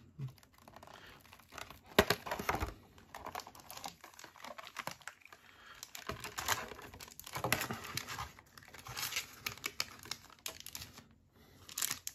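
Foil Yu-Gi-Oh booster pack wrapper crinkling and being torn open, with the cards inside handled, in short irregular crackles and clicks.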